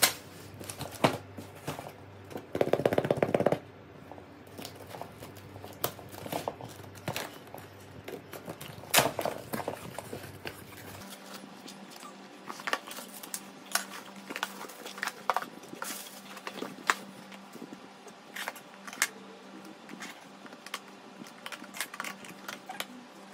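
Scissors and hands working on cardboard packaging: a run of sharp clicks, snips and cardboard knocks and scrapes, with a louder rasp lasting about a second, about three seconds in.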